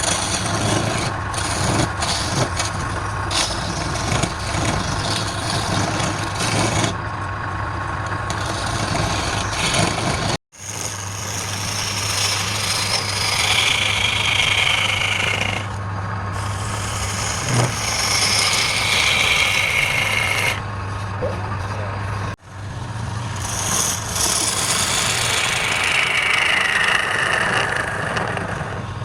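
Wood lathe running with a steady motor hum while a hand turning tool cuts the spinning wood, giving high scraping whines that slide downward in pitch on each pass. The sound drops out abruptly twice, about a third and three quarters of the way through.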